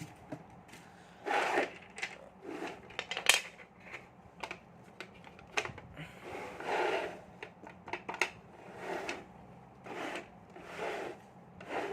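Plastic toy-set parts being handled and fitted together: irregular clicks, knocks and short rubbing scrapes, one or two a second.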